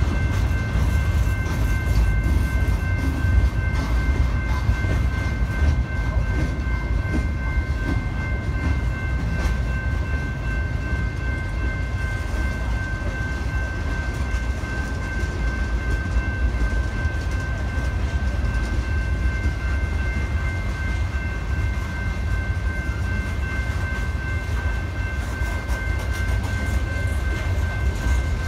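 Freight train of gondolas and tank cars rolling past at close range: a steady low rumble of steel wheels on rail, with a faint steady high whine over it.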